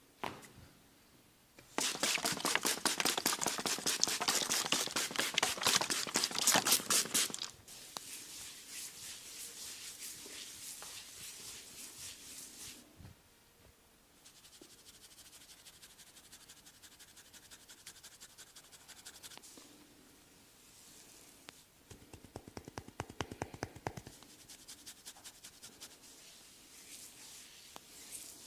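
Massage strokes: a rapid run of sharp taps, many a second for about five seconds, then a softer rubbing hiss, and a second, shorter burst of taps later on.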